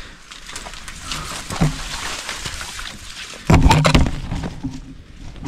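Rustling of brush and dry vegetation with footsteps, as someone moves through thorny undergrowth, and a louder rough burst about three and a half seconds in.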